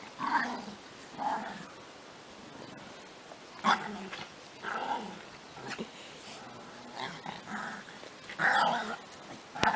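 Dogs play-fighting, a large shepherd-type dog and a small fluffy puppy, growling in short bursts about a second apart, loudest about a third of the way in and near the end.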